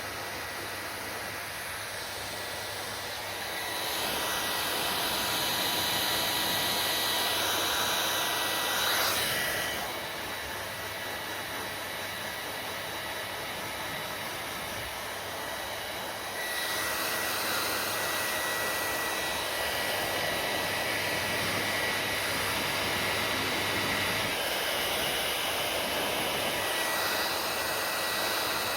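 Hair dryer blowing steadily, a rushing hiss with a faint high whine. It gets louder about four seconds in, drops back around ten seconds, and gets louder again around seventeen seconds.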